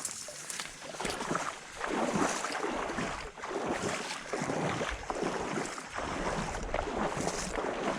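Irregular sloshing and swishing, roughly one stroke a second, typical of someone wading through shallow marsh water and vegetation.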